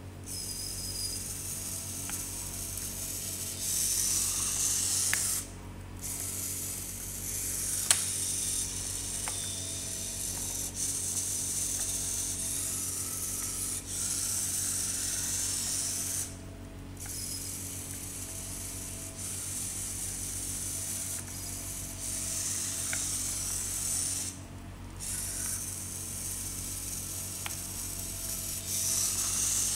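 Small geared DC motors of a remote-controlled robot car running and whirring as it drives forward, back and around. They cut out briefly three times as the robot stops between commands from the infrared remote, with a few single clicks, the sharpest about eight seconds in.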